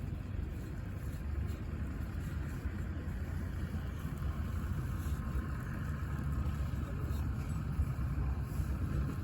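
An engine running steadily at idle, a low even rumble.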